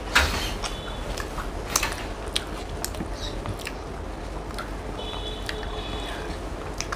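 Chewing and mouth sounds of someone eating mutton biryani and chicken chaap, with scattered small smacks and clicks and one louder smack just after the start.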